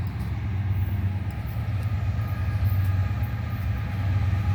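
Diesel freight locomotive running as the train approaches, a steady low engine drone.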